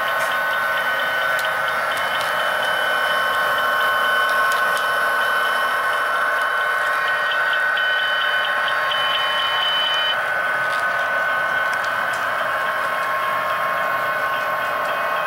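HO-scale model coal train running: a steady high whine from the locomotive and rolling cars, with a rapid high ticking over it that stops about ten seconds in.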